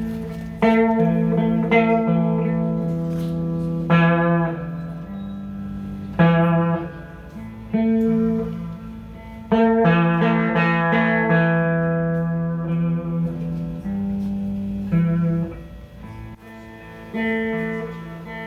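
Guitar playing the song's instrumental intro: chords struck every second or two and left to ring and fade, with no singing yet.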